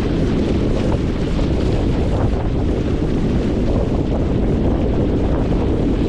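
Steady wind rumbling on the microphone aboard a sailing yacht under way, a dense low noise with no let-up.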